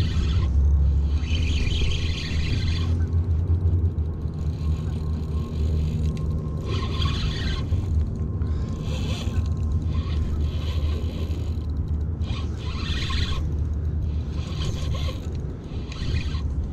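Spinning reel being cranked against a hooked fish on a bent rod, giving a rasping whir in spells of a second or two between pauses, over a steady low rumble.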